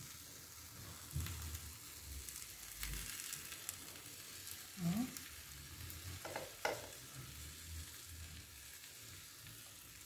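A spatula scraping thick batter out of a bowl and onto the pan, with soft wet plops and a few short scrapes over a faint steady hiss.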